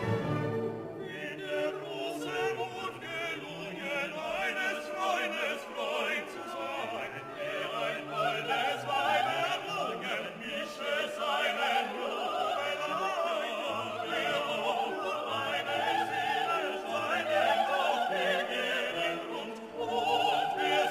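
Background music: an operatic or classical vocal piece, a singer over orchestral accompaniment.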